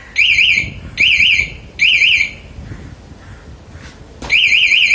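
Aftermarket motorcycle anti-theft alarm siren sounding a fast warbling electronic tone. It gives three short bursts in the first two seconds, then after a pause a continuous warble starts about four seconds in.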